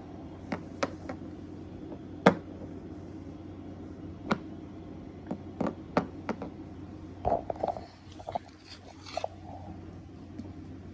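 Scattered light clicks and knocks of small objects being handled and set down, a dozen or so at irregular intervals, over a steady low hum.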